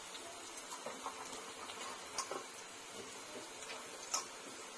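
Onions and red chillies frying in hot oil in a kadhai: a faint steady sizzle with a few sharp crackling pops scattered through.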